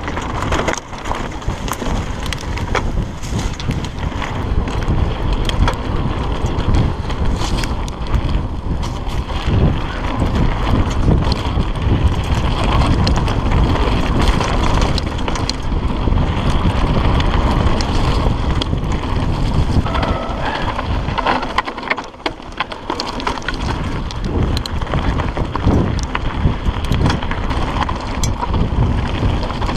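Wind buffeting an action camera's microphone while a hardtail mountain bike rolls fast down a rocky dirt trail, with the rumble of tyres on dirt and stones and many short rattles and knocks from the bike over bumps. It goes briefly quieter about twenty-two seconds in.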